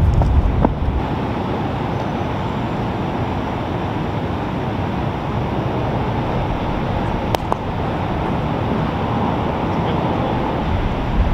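Steady outdoor background noise, a rumbling hiss heaviest in the low end, with one sharp click about seven seconds in.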